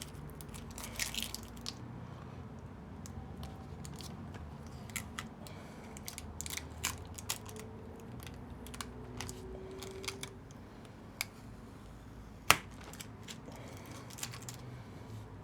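Scattered light clicks, scrapes and crackles of a tablet's battery being pried loose from the sticky tape that holds it down, with one sharper click about twelve seconds in.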